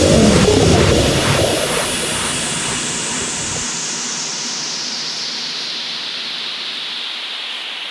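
Synthesized white-noise sweep at the end of an electronic dance track: the hiss falls steadily in pitch and fades slowly. A last low bass note from the track dies away in the first few seconds.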